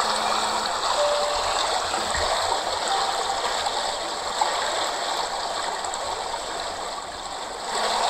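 Steady rushing of a waterfall cascading over rocks into pools, with a few faint, brief bird chirps over it.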